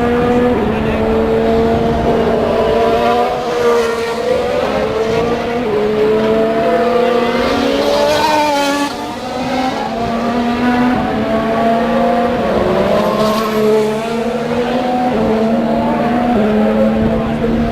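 Racing car engines running at high revs on a circuit, several cars at once, their pitch stepping up and down through gear changes. About eight seconds in, one car passes close with a rising then falling sweep in pitch.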